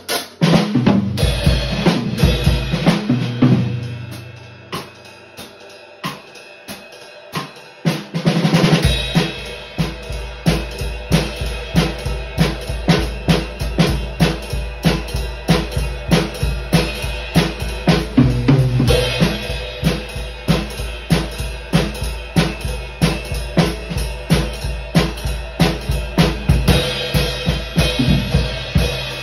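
Gretsch drum kit played with sticks, snare, bass drum and cymbals, along with a jazz backing track that carries steady low bass notes. The playing drops to a quieter passage about four seconds in and comes back into a steady, driving beat around nine seconds in.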